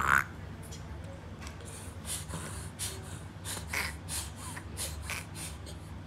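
A baby's short cry right at the start, then a run of quick, noisy breaths, a few every second.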